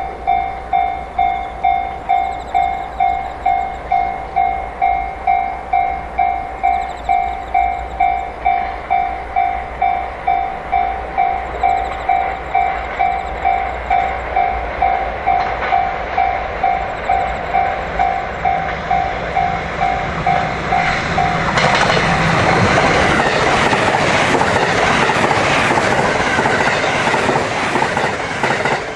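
A railway warning bell rings in a steady pulse, about one and a half strikes a second. About two-thirds of the way in, a JR West 683-series limited express electric train passes at speed, and its loud rushing wheel and air noise swamps the bell.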